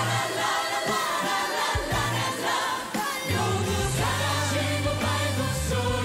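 Mixed choir singing in harmony over instrumental accompaniment with a sustained bass line. The music thins briefly just before three seconds in, then the bass comes back in full.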